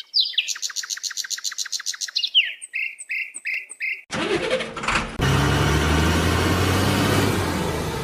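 Bird-like chirping: a fast trill of high repeated notes, then a few short falling whistles. About four seconds in, this cuts to a steady mechanical running noise with a low, constant hum.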